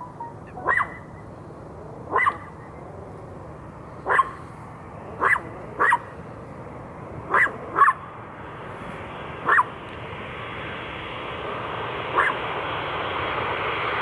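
A dog barks about nine times, singly and in quick pairs. Beneath the barks, the engine noise of a Boeing 777-200 jet airliner grows steadily louder through the second half.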